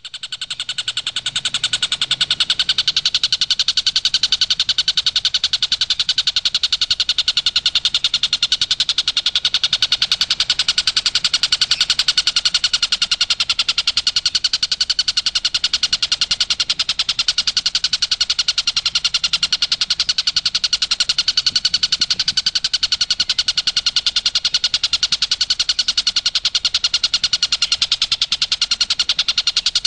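Tengkek buto kingfisher calling as a masteran recording: a fast, unbroken rattling trill of rapid, even pulses that starts abruptly from silence and holds steady without a break.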